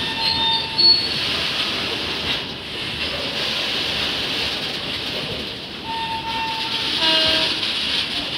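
Coal rake of open freight wagons rolling past with a steady rush of wheels on rail, broken by short high-pitched wheel squeals near the start and again from about six seconds in, as the wagons run through the crossover points while changing tracks.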